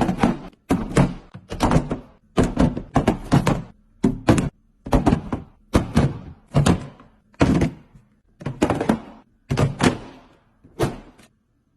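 Items being set down and clunked into place in a fridge, a quick run of sharp knocks and thunks, about two a second.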